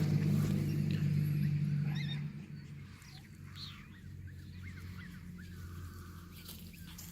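Faint, short high-pitched squeaks from young puppies, gliding up and down. They come over a steady low hum that is loudest at first and drops away about two and a half seconds in.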